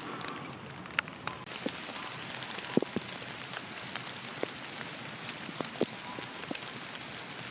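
Rain falling, a steady hiss with scattered drops ticking irregularly on a hard surface close by.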